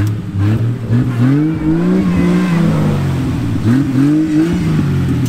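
A vehicle's engine revving up and down several times in a row, each rev rising in pitch and then falling back, as the vehicle tries to drive free of deep mud.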